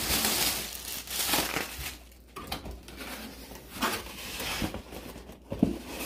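Packaging crinkling and rustling in irregular bursts as plastic wrap and the cardboard box of a ring light kit are handled and parts are pulled out.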